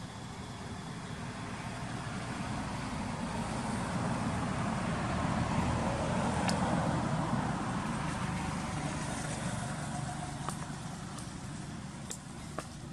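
A motor vehicle passing by: its noise swells over about six seconds, peaks, then slowly fades away. A few sharp ticks come through in the second half.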